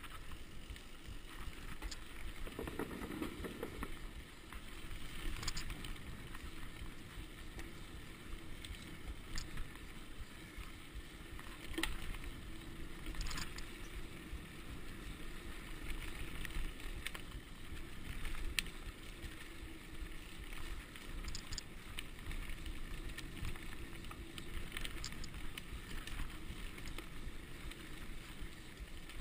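Mountain bike descending a dirt trail: steady rumble of the tyres over the ground, with sharp rattles and knocks from the bike over bumps every few seconds.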